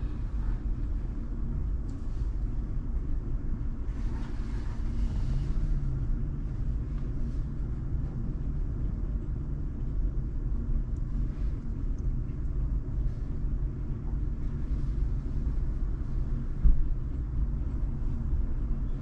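Steady low rumble of a car, heard from inside the cabin, with a single short thump near the end.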